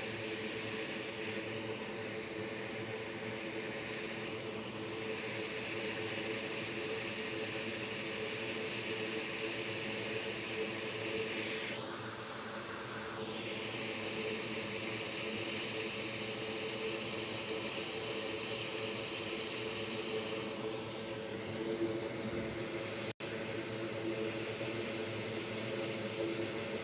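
Hot air rework station blowing, a steady rush of air over a fan hum, with the airflow set high at 100. The hiss drops away briefly about twelve seconds in, then returns.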